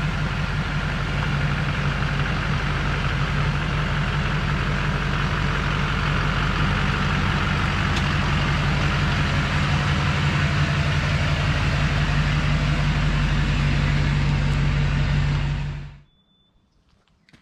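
Chevy Kodiak C4500's 6.6-litre Duramax V8 turbo-diesel running at a steady speed, an even low drone that does not change in pitch. It stops abruptly near the end.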